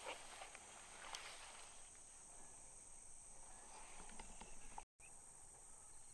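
Near silence: a faint, steady, high insect chorus over quiet field ambience, with a few soft rustles. The sound drops out completely for an instant about five seconds in.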